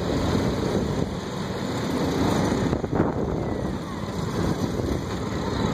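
Farmall tractor engine running steadily as it passes close by, pulling a parade float, with a short sharp click about three seconds in.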